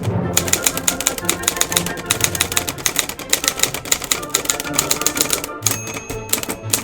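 Manual typewriter typing, fast runs of keystrokes at several a second, thinning out near the end, with music playing underneath.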